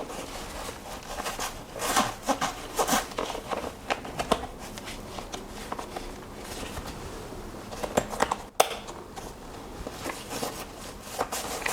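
Rustling and scattered small clicks of a small fabric bag and a shoulder strap being handled while the strap is fitted onto the bag's two mounting points.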